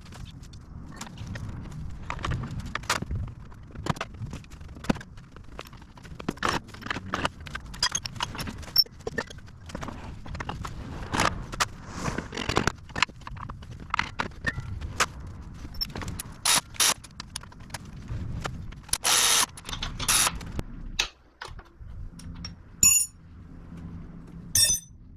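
Hand tools and metal parts clinking, tapping and scraping during work on a motorcycle wheel and tire, with two short bursts of noise about three quarters of the way through.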